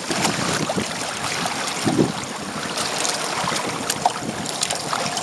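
Choppy seawater rushing and splashing along the hull of a Hobie Tandem Island sailing kayak under sail: a steady rush broken by many small splashes.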